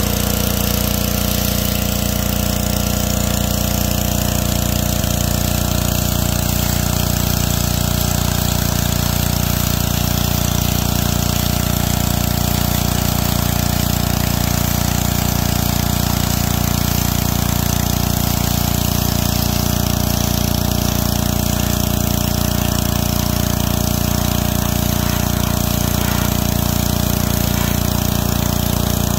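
Gas-engine pressure washer running steadily at about 3000 PSI, its small engine going under load while the jet from a 25-degree nozzle hisses against a motorhome's front panel, stripping off a clear protective film.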